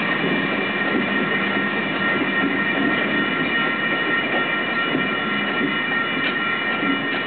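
Short freight train rolling past: the wheels of an empty center-beam flatcar rumble and knock over the rails. A steady high-pitched ringing tone sounds over the rumble.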